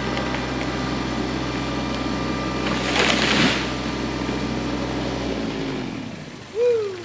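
Engine idling steadily, with a brief hiss about three seconds in, then shut off about five and a half seconds in and running down. A short falling tone sounds near the end.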